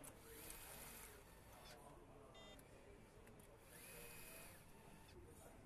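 Faint whir of an electric nutrunner running twice, each time for about a second and a half, driving connecting-rod bolts onto the crankshaft of a Mercedes-AMG M139 engine. There is a brief run of light ticks between the two runs.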